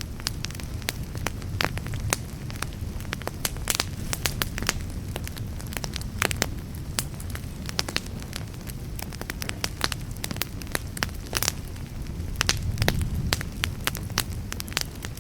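Fire crackling, with frequent sharp, irregular pops over a steady low rumble that swells about twelve seconds in.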